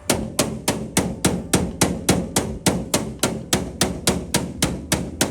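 Hammer tapping a metal flasher-delete plate in a steady run of light, even strikes, about three or four a second, rolling the plate into a curve.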